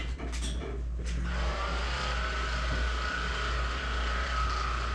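A couple of clicks, then a small electric motor starts about a second in and runs with a steady whine.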